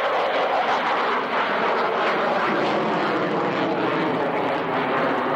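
Jet engine noise from a twin-engine Russian fighter flying a display manoeuvre overhead: a steady, even rushing roar of jet exhaust.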